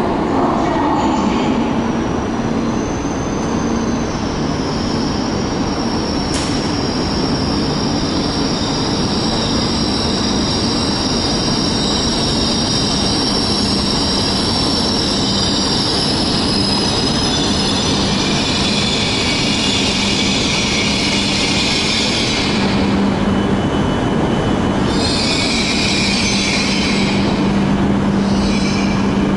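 E5 series Shinkansen pulling into the station and slowing to a stop. It makes a steady rumble under a high whine that drops in pitch as the train slows, with high squealing and hissing over the last few seconds as it comes to a halt.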